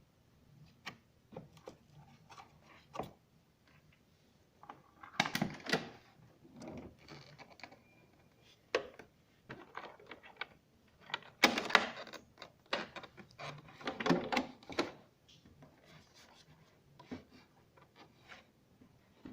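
Irregular clicks, knocks and scrapes of metal parts and tools being handled while an oxygenator motor is worked on, with louder clattering bursts about five, twelve and fourteen seconds in.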